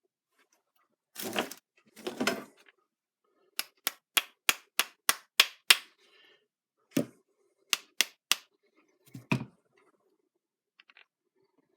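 Sharp metal-on-metal tapping on the Farmall Cub hydraulic pump's shaft while the woodruff key is fitted: two rough knocks, then a quick run of about eight taps at roughly three a second, then a few more taps and a double knock near the end.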